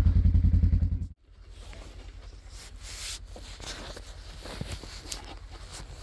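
A small engine idling with a low, even throb cuts off abruptly about a second in. After that come faint rustling and a few light metallic clicks as gloved hands handle a steel trap.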